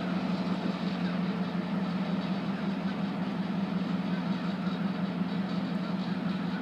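Diesel locomotive's engine running with a steady low hum while it moves slowly, shunting cars.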